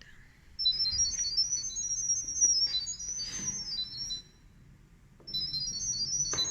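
Rapid runs of high-pitched electronic beeps hopping up and down in pitch, played from a smartphone speaker in two bursts with a pause of about a second between them. This is the sound-wave pairing signal that carries the Wi-Fi configuration to the PTZ camera.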